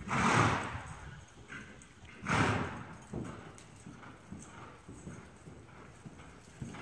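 A mare's hooves thudding on deep sand footing as she is ridden at speed: soft, muffled, rhythmic hoofbeats. Two louder rushes of noise come near the start and about two seconds in.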